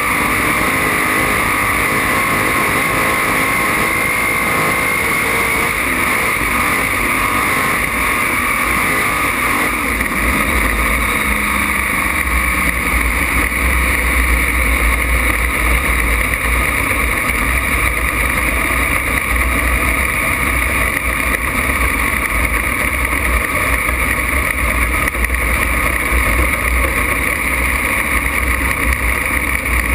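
Open-wheel dirt race car engine running hard on track, heard from a cockpit-mounted camera: a loud, steady engine drone, with a deeper rumble coming in about ten seconds in.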